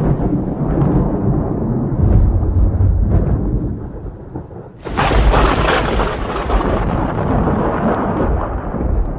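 Thunder: a low rolling rumble that fades, then a sharp, close crack about five seconds in that rolls on into a long, slowly decaying rumble.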